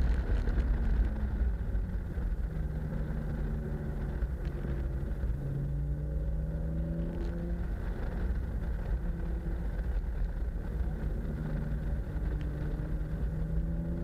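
BMW E36 328i straight-six engine running at moderate revs while driving, its pitch rising and falling with the throttle through the bends, under a heavy steady low rumble of wind and road noise on the car's outside.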